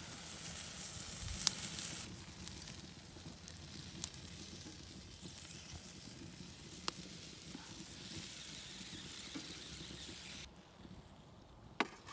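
Sausages sizzling on a steel grill grate over a wood campfire, a steady hiss with a few sharp pops. The sizzle drops away about ten seconds in.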